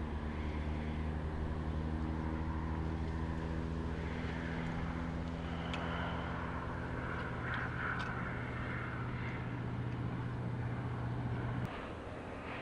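A steady low engine drone with a clear pitch, stopping abruptly near the end.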